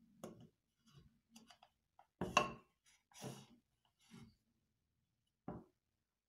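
Wooden blocks and a crossbar being set down and fitted together on a wooden workbench: a string of light wood-on-wood knocks and scrapes. The loudest comes about two seconds in, and a last sharp knock comes near the end.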